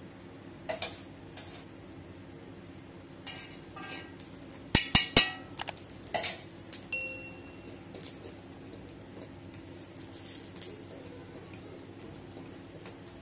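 Spatula knocking and scraping on a dosa tawa as a toasting bread sandwich is pressed and turned. There are scattered clicks, a loud cluster of knocks about five seconds in, and a short metallic ring about seven seconds in, all over a faint steady hum.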